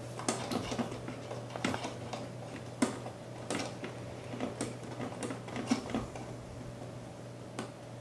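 Small irregular metallic clicks and scrapes of fingers turning the knurled thumb nuts down on a Koolance CPU-370 water block's mounting screws. The clicks come thickly for the first six seconds, then one more near the end.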